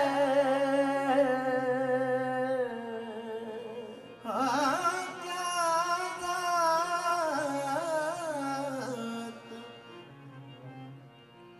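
A naat, an Urdu devotional song in praise of the Prophet Muhammad, sung by a solo voice in long, ornamented held notes. One phrase ends about three seconds in, a second begins about a second later, and it fades out near the end.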